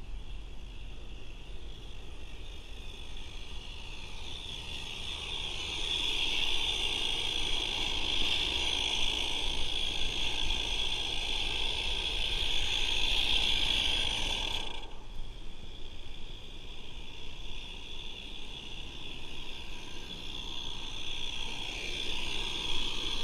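Regner live steam garden-railway train running, heard close up from on board: a steady hiss over a low rolling rumble. The hiss swells, cuts off abruptly about fifteen seconds in, then comes back fainter.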